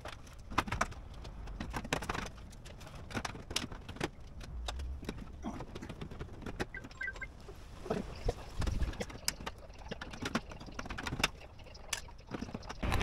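A hole being cut in a sheet-metal gutter: a string of irregular sharp clicks and snips, with no motor running.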